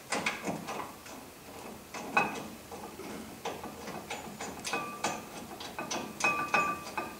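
Irregular light metallic clicks and clinks of a bolt being fitted and threaded by hand into a C3 Corvette front brake caliper bracket. In the second half several of the clinks ring briefly.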